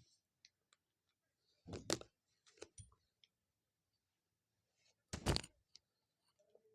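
A few scattered clicks and knocks, with the loudest about two seconds in and about five seconds in.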